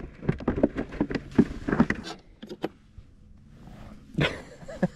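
A quick run of clattering knocks and rattles for about two and a half seconds, then quieter, with a couple of sharper knocks near the end.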